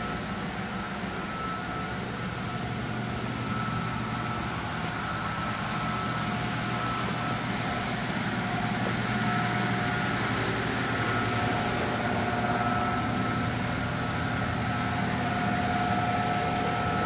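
A steady mechanical hum and hiss with a couple of faint, steady whining tones. The higher of the two tones grows stronger about halfway through.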